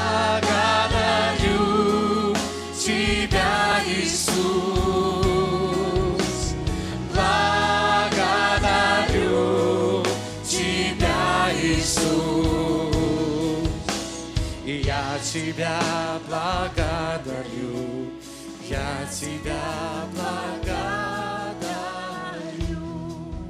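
A church worship team sings a Christian worship song together, with vibrato voices over keyboard accompaniment. The music grows gradually quieter in the last several seconds.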